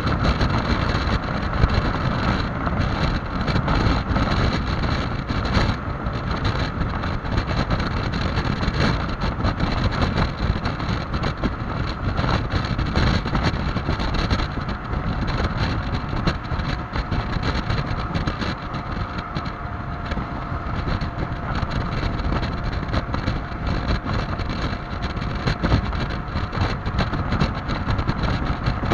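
Heavy wind noise buffeting the microphone on a Yamaha XMAX 300 scooter at top speed, with the scooter's engine drone faintly underneath. From about halfway through, a faint steady tone sits under the wind.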